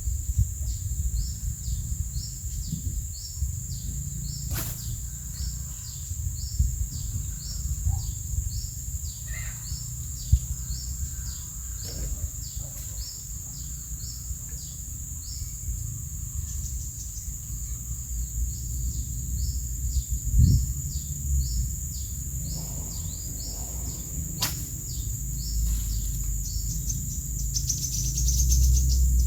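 Outdoor pond-side ambience: a steady high insect drone with a short chirp repeating about twice a second, over a low rumble. A sharp click sounds twice.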